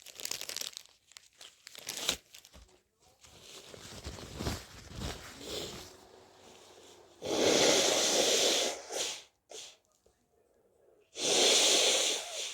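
Tissue crinkling, then a person with a cold blowing their nose into a tissue twice, each blow long and loud, about two seconds.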